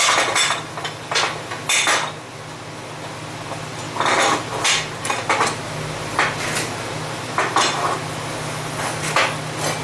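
Steel tools and bar stock clanking against a steel welding table as they are handled, picked up and set down, in irregular clusters of sharp knocks that ring briefly, over a steady low hum.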